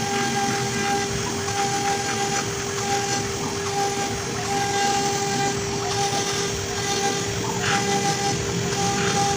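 CNC router cutting wood: a steady whine, with a higher tone that cuts in and out every second or so, over a continuous cutting hiss.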